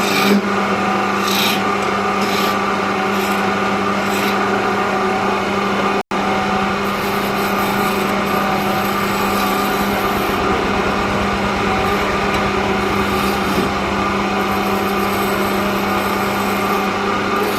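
Wood lathe running with a steady motor hum while a turning tool scrapes and rasps against the spinning wooden spindle. The sound cuts out for an instant about six seconds in.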